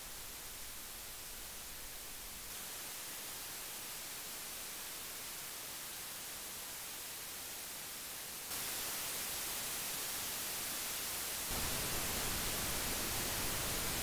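Amplified self-noise of USB audio interface microphone preamps driving a Shure SM7B dynamic microphone: a steady hiss, heard from several interfaces in turn, among them the Solid State Logic SSL 2 and the Focusrite Vocaster Two. The hiss steps louder three times as the interface changes, and the last change adds a low rumble.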